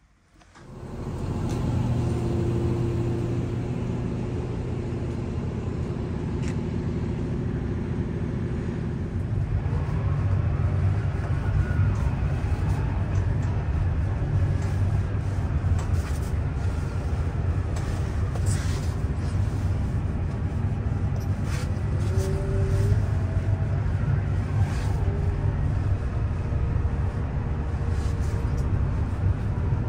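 Case 521G wheel loader's diesel engine running, heard from inside the cab, steady at first and then louder and rougher from about nine seconds in as the machine drives. A short rising whine sounds around two-thirds of the way through.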